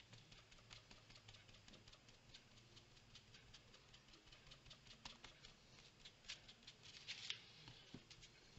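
Faint, rapid dabbing and rubbing of fingertips on a paper tag: light scratchy taps several times a second, with a slightly louder scrape near the end.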